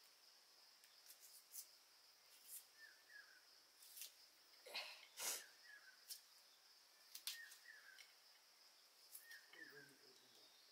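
Quiet rural ambience: a steady faint high insect drone with short bird chirps, usually in pairs, every couple of seconds. Over it a few soft clicks and taps from an onion being peeled and cut over a steel bowl of water, the clearest about halfway through.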